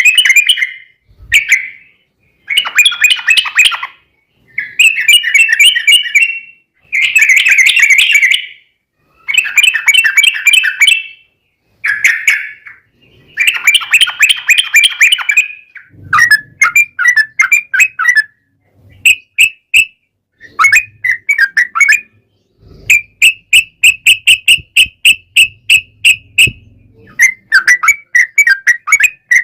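Yellow-vented bulbul (trucukan) song: loud, bubbly chattering phrases of a second or two each, repeated with short pauses. From about halfway through it breaks into quicker runs of short, clipped notes.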